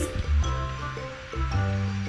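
Background music: held bass notes with lighter tones above, changing every half second to a second.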